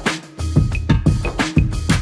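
Background music with a steady, punchy drum beat.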